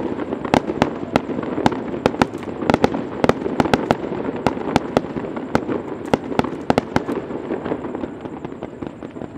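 Aerial fireworks bursting in a rapid barrage: many sharp bangs in quick succession over a continuous rumble, thinning out near the end.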